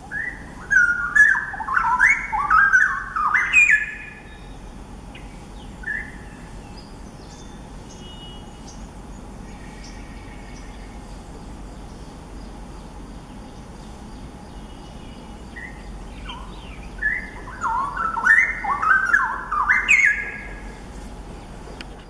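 Straw-headed bulbul singing: a loud run of quick, rich warbled notes rising and falling for about four seconds at the start. A second such phrase comes about three-quarters of the way through, with only a few faint notes in between.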